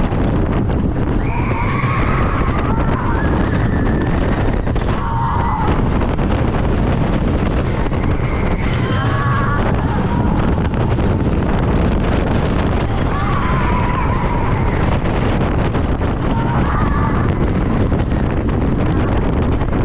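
Roller coaster train speeding along an RMC Topper Track wooden coaster: a loud, steady rumble of the wheels on the track mixed with wind rushing over the microphone. Riders scream in short bursts several times.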